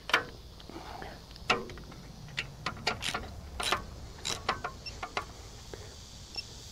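Ratchet of a digital torque wrench clicking in short, irregular strokes as engine mounting bolts are tightened to torque.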